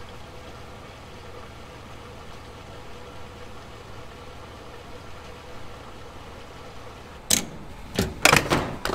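A vehicle engine idling with a steady low hum. About seven seconds in come several sharp clunks and clicks as a fuel pump nozzle is handled in a pickup's filler neck.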